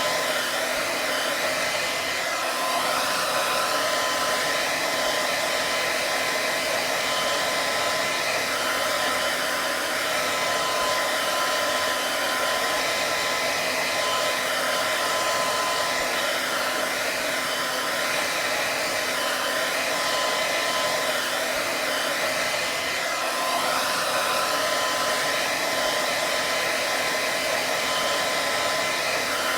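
Hair dryer running steadily: an even blowing hiss with a faint, constant whine in it.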